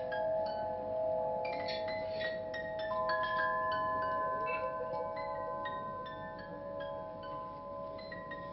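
Wind chimes ringing: many quick, irregular strikes of high tones over several long-held lower tones, with a new long ringing tone coming in about three seconds in.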